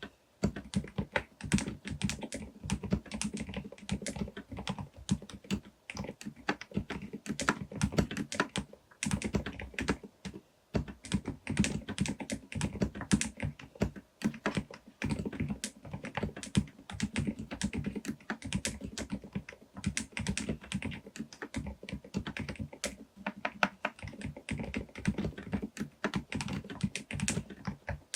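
Typing on a Groovestone GV10M-8K mechanical keyboard fitted with silent Milky S 38g switches: a fast, continuous run of keystrokes, with a couple of brief pauses.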